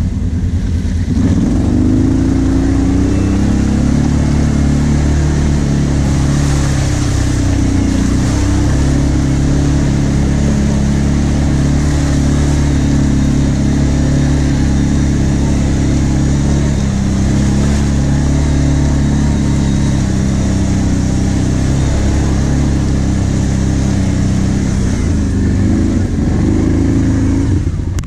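Quad bike (ATV) engine revving up about a second in as it pulls away, then running steadily along a muddy track, its pitch rising and falling a little with the throttle.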